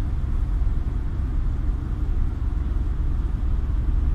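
Car driving on a snowy, slippery road, heard from inside the cabin: a steady low rumble of engine and tyre noise.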